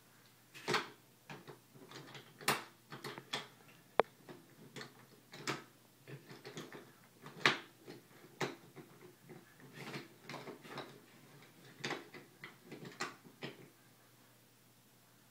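Wooden toy trains and pieces knocking and clattering as they are handled on a wooden train table: irregular clicks and clacks, with one sharp click about four seconds in. The clatter stops shortly before the end.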